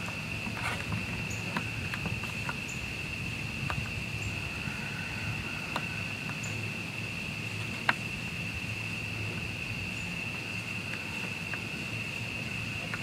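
Steady high-pitched trilling of insects, with a few faint scattered clicks and one sharper click about eight seconds in.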